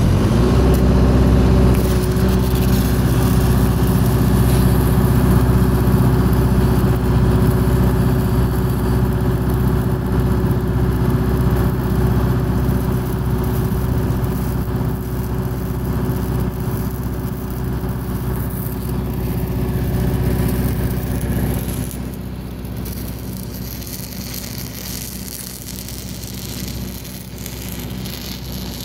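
Stick (SMAW) arc welding with a 3.2 mm electrode on 8-inch schedule 40 steel pipe, the arc crackling steadily, over a steady engine hum that gets somewhat quieter about three-quarters of the way through.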